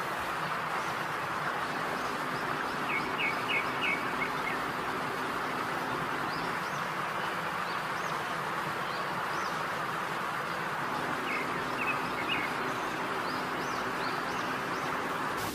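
A steady sizzling hiss of food frying in oil, with two brief runs of quick bird chirps, about three seconds in and again around eleven to twelve seconds.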